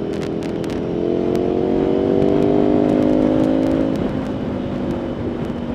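Ducati Scrambler's 800 cc V-twin engine pulling under acceleration, its note climbing slowly and then dropping about four seconds in, with wind rushing past the helmet microphone.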